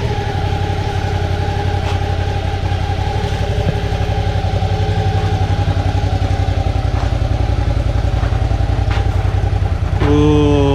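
Suzuki V-Strom 650's V-twin engine running with a steady low pulse, its drive chain freshly adjusted. About ten seconds in the engine note gets louder and then falls in pitch.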